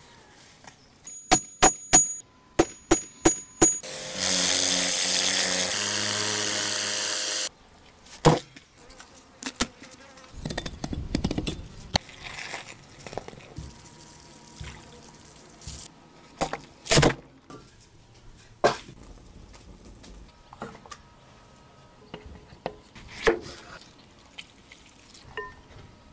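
A montage of close-miked fish-preparation sounds. First come sharp clicks and taps, then about three and a half seconds of loud steady rushing noise, then scattered knocks, rustling and handling of the fish and ingredients.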